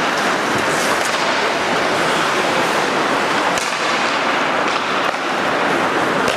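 Ice hockey play on a rink: a steady scraping hiss of skate blades on the ice, with a few sharp clacks from sticks and puck, one about three and a half seconds in and another near the end.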